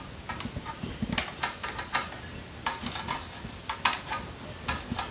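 Metal-tipped string straightener (awl) clicking and scraping against the tensioned, rough-textured strings of a tennis racket as they are pushed straight, an irregular run of light clicks.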